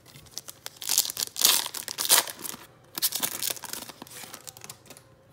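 Foil trading-card pack torn open by hand: several sharp rips in the first couple of seconds, another tear about three seconds in, then softer crinkling of the wrapper.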